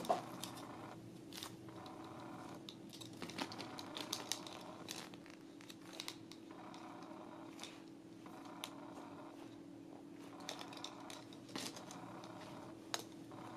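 Faint scattered clicks and rustles of hands squeezing and handling soft foam squishy toys with their card tags and ball chains, over a steady low hum.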